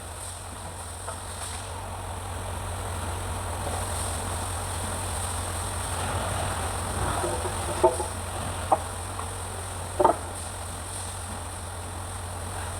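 Scania truck diesel engine idling steadily, with a few sharp metallic knocks about two-thirds of the way through.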